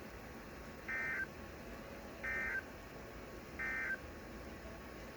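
Emergency Alert System end-of-message signal on a weather radio broadcast: three short, identical bursts of digital data tones, just over a second apart, marking the end of the alert.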